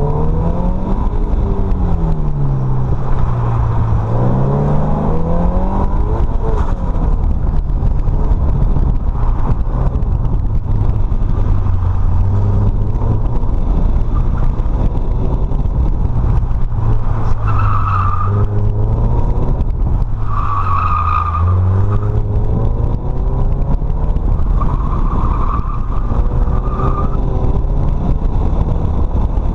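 Scion FR-S's 2.0-litre flat-four engine, heard from inside the cabin, revving up and down as the car is driven through a cone course. The tyres squeal briefly three times in the second half as the car corners.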